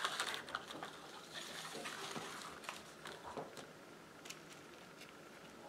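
Light handling noise: rustling and small clicks as LED backlight strips are moved and laid on a TV's reflector panel, busier for the first couple of seconds and then quieter.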